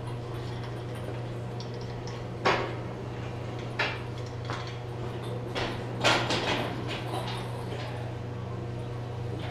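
Parts being handled and fitted in a garage: a handful of sharp knocks and clanks, the loudest about two and a half seconds in and again about six seconds in, over a steady electrical hum.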